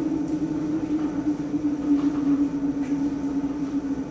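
A steady low hum, with faint scrapes of a spoon stirring rice in a metal saucepan.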